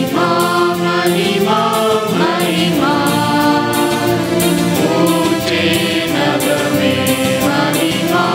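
Church choir singing a hymn over keyboard accompaniment, in long held notes that change pitch about once a second.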